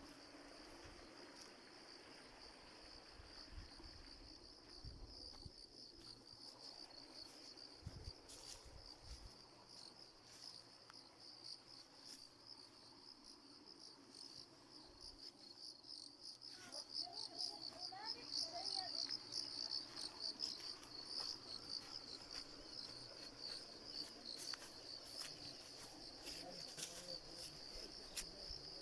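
A chorus of insects trilling in a steady high-pitched drone, getting louder a little past halfway through.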